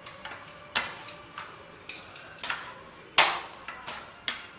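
A spoon stirring a thick bread-and-rava dosa batter in a ceramic bowl, knocking against the bowl's side in irregular clinks about every half second, the loudest a little after three seconds in.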